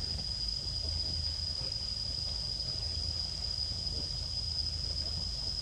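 Steady high-pitched insect drone, one unbroken tone, over a low rumble.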